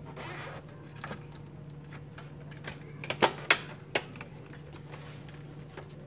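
Plastic front faceplate of a Lenovo desktop case being pressed back onto the chassis, with three sharp plastic clicks a little over three to four seconds in as it snaps into place. A steady low hum runs underneath.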